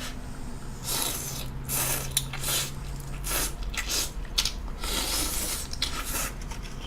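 Ramen noodles and broth being slurped, close to the microphone: a run of hissing slurps of uneven length, several in a row.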